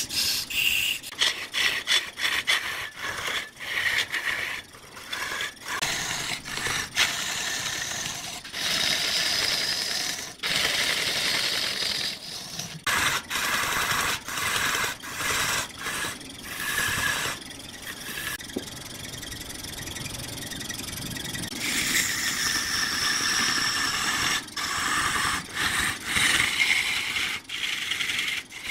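Turning tool cutting into wood spinning on a lathe: a scraping hiss with a high whine, breaking off and resuming abruptly many times.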